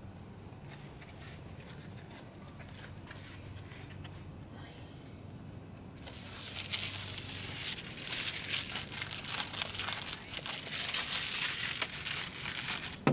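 Quiet at first; about six seconds in, a loud crackling and crinkling of plastic starts and runs on for about seven seconds, as a car window vent visor and its adhesive tape are handled and pressed into place. A sharp knock comes at the end.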